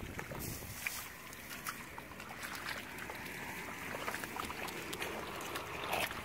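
Wind blowing on the microphone, with small splashes and squelches of hands groping through shallow muddy water.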